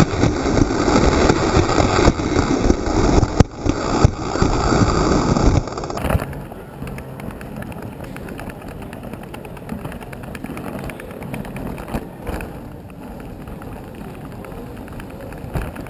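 A fischertechnik model roller coaster car rolling fast on its plastic track, heard from a camera riding on it: a loud rattling rumble with a couple of sharp knocks. About six seconds in it cuts off suddenly, as the ride comes to rest, leaving only a much quieter steady background hum.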